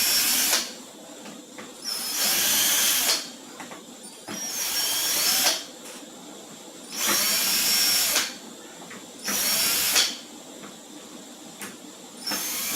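Cordless battery screwdriver backing out housing screws in short runs of about a second each, five times, its motor whine rising in pitch as each run starts.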